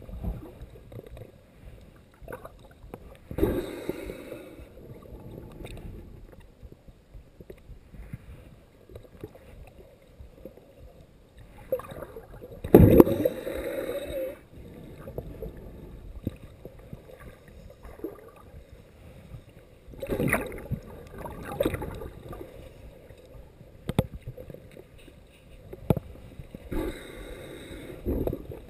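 Muffled underwater water noise heard through a submerged camera: a low, irregular wash with louder swooshing surges every few seconds, the strongest about halfway through.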